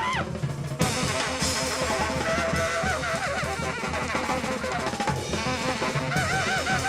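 Background music: a track with a full drum kit beat under a wavering melodic lead line.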